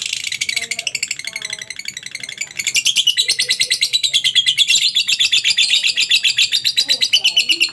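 A lovebird's ngekek: a long, rapid chattering trill of many sharp high notes a second, growing much louder about a third of the way in and stopping abruptly at the end.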